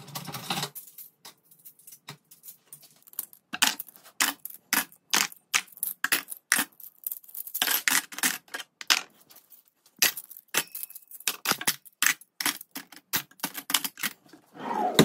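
Metal cutlery clinking and clattering as spoons, forks and knives are put into a plastic drawer organiser: many short sharp clicks at an uneven pace, sparse at first and much busier after about three and a half seconds.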